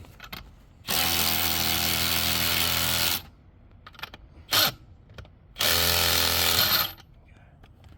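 Cordless impact driver running down the bolts of a Romac pipe coupling. It runs for about two seconds, gives a short blip, then runs again for about a second.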